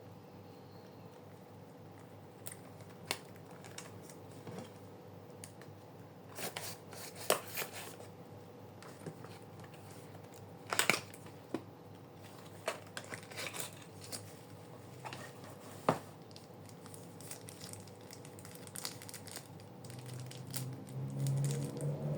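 Packaging being handled and opened: scattered sharp clicks and short crinkling, tearing rustles, heaviest in the middle, over a faint steady hum.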